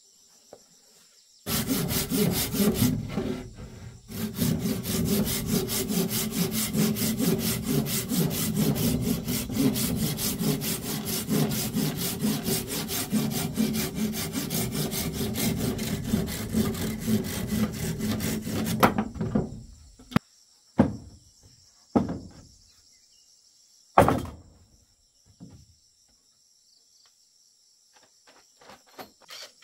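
Hand saw cutting through a wooden board with quick, even strokes that stop suddenly after about seventeen seconds. A few separate sharp knocks follow, with insects chirping faintly in the quiet gaps.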